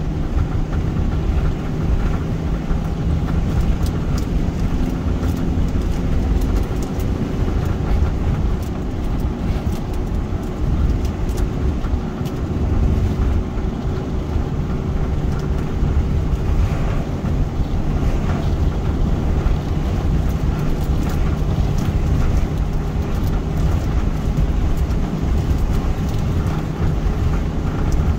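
Car driving at a steady road speed: a steady low rumble of tyres on the road with a constant engine hum.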